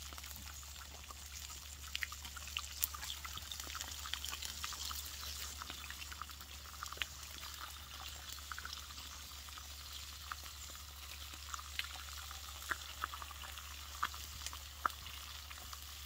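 Smoked back bacon frying in a pan over a wood fire: a steady sizzle with scattered pops and spits.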